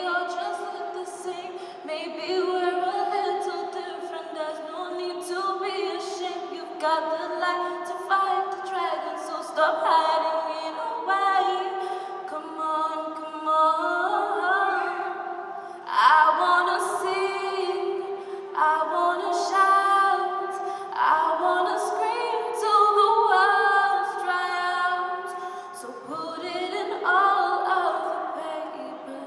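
Unaccompanied voices singing a cappella in harmony, with several parts holding and moving between sustained notes together.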